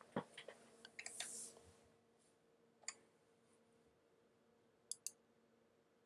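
Near silence with a few faint, scattered computer clicks and a quick pair of clicks near the end, over a faint steady hum.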